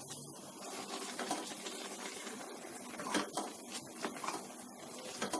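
Pot of water with grated pumpkin boiling on the stove, a steady bubbling hiss with a few short clicks scattered through it.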